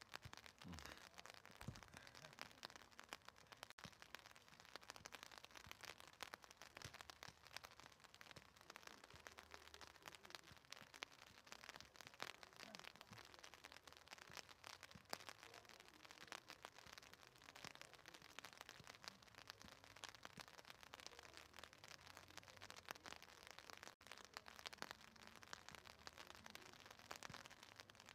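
Faint, steady crackle of light rain pattering, many tiny drops.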